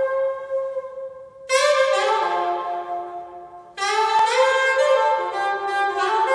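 Recorded music played back over a home hi-fi system that includes a PS Audio Delta 100: sustained chords, with new chords coming in about a second and a half in and again near four seconds.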